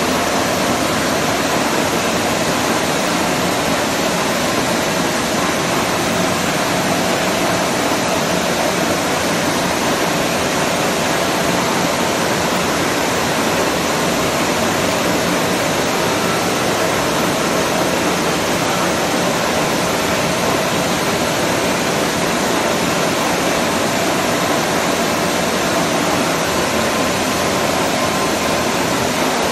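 Large bed-type milling machine running, its universal milling head traversing along the table: a steady, even rushing noise with a faint constant whine and no knocks or breaks.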